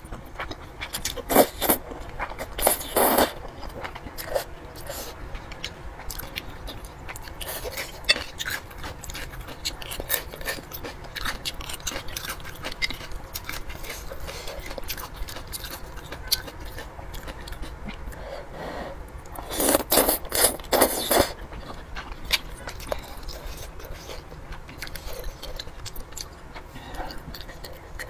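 A person eating thick noodles in spicy sauce: repeated slurps with wet chewing and smacking between them. The longest, loudest slurping comes about two-thirds of the way through.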